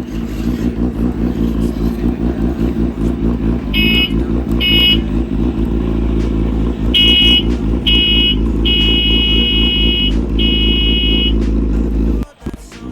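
Motorcycle engine sound running steadily with an even low rumble. Short high beeps sound twice about four seconds in, then four more times, one of them longer. The engine sound breaks off briefly near the end and resumes.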